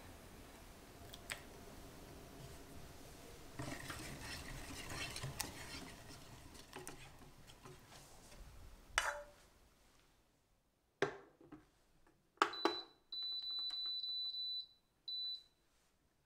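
A wire-and-silicone whisk stirs a lemon curd mixture in an enamel saucepan, then the pan knocks a few times as it is set down on a glass cooktop. Near the end the cooktop's control panel gives a quick run of high beeps, then one more short beep, as it is switched on.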